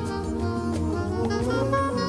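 Instrumental background music: held melodic notes over a moving bass line, with light percussion.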